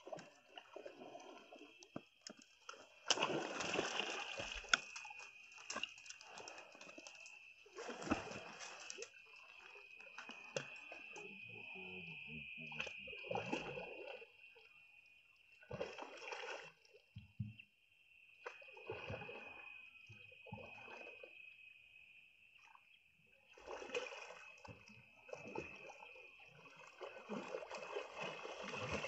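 A hooked fish thrashing and splashing at the water's surface in irregular bursts as it is played in on a fishing rod toward the bank. A steady high-pitched drone runs underneath.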